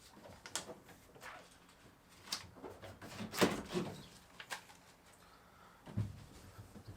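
Intermittent rustling, scraping and light knocks of handwork: self-adhesive sound-deadening mats being peeled and pressed onto a van's bare sheet-metal panels, with a duller knock about six seconds in.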